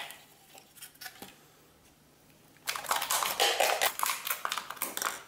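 Snap-off utility knife cutting through a thin PET plastic bottle at the shoulder, taking the top off: a rapid crackling, scratching run of strokes that starts about two and a half seconds in, after a few faint clicks.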